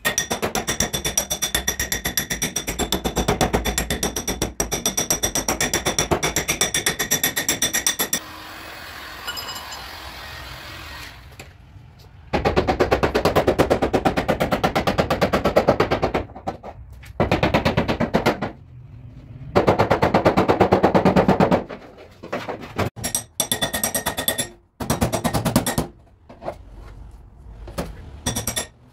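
Hand hammer beating dents out of a car door's sheet-metal panel: fast, even runs of many blows a second lasting a few seconds each, broken by short pauses.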